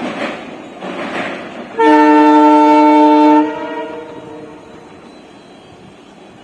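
Single blast of an Indian Railways WDG4 diesel locomotive's air horn, a loud chord of several steady tones lasting about a second and a half, then dying away. Before it, a pulsing rushing noise.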